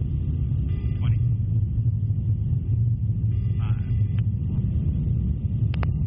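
Steady low rumble of an aircraft in flight, with two sharp clicks near the end.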